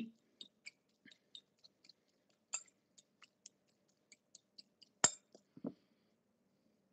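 Fork tapping and scraping against a glass mixing bowl while flaking cooked salmon: a run of faint light clicks, with a sharper clink about two and a half seconds in and the loudest about five seconds in.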